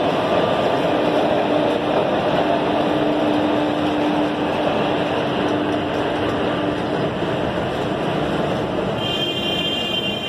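Passenger coaches of an express train hauled by a WAP4 electric locomotive rolling past as it pulls away on departure: a steady rumble of wheels on rail, with a steady hum that fades out about seven seconds in and a high tone that comes in near the end.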